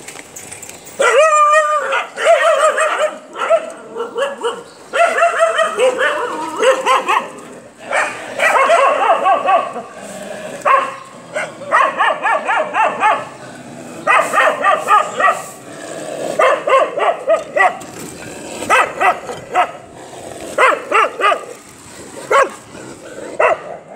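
Stray puppies yelping and whining at feeding time, in quick runs of short, high-pitched cries that start about a second in.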